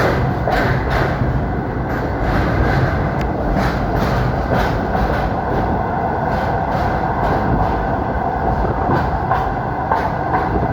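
Passenger train running at speed, heard from on board: a steady rumble with repeated clacks from the wheels on the track.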